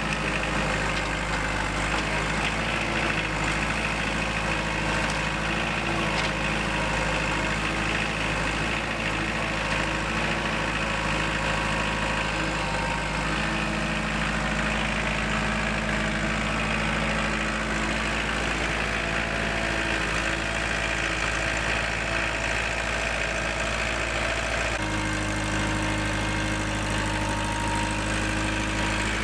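An engine running steadily at an even speed, its tone shifting slightly near the end.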